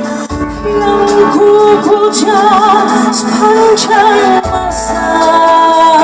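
A woman singing with vibrato over live band accompaniment with a keyboard.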